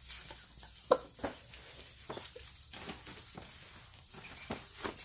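Faint rustling and crackling of an artificial Christmas tree's branches, tinsel and gift wrap as a 7 kg cat climbs down through the tree onto wrapped presents, with scattered small ticks, the sharpest about a second in.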